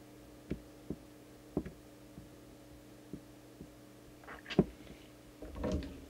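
Scattered light clicks and taps of hands and an alignment tool working inside an open CB radio while its transmitter adjustments are tweaked. A sharper knock comes a little past the middle and a brief rustle of handling near the end, over a steady low hum.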